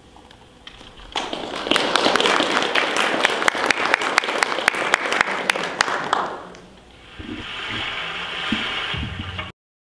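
Audience applauding, starting about a second in, with many individual claps, and dying away at about six seconds. A quieter steady noise with a few low knocks follows, and then the sound cuts off abruptly near the end.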